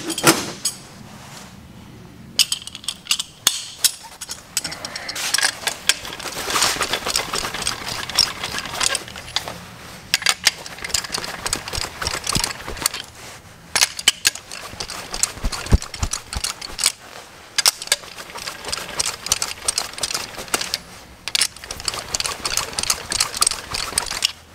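Socket ratchet clicking in fast runs as the nuts on an engine's main bearing caps are spun off their studs, with a few louder knocks about two-thirds of the way through.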